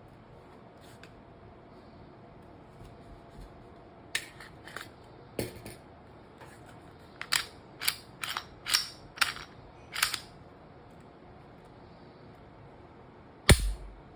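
Sharp clicks and snaps of a Glock 17 pistol and its hard case being handled: a few single clicks, then a quick run of about seven. One heavier knock, the loudest sound, comes near the end.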